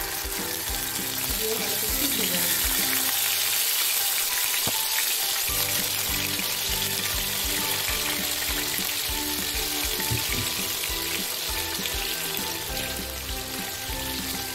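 Fish steaks sizzling steadily as they are added to well-heated oil in a nonstick kadai and begin to shallow-fry.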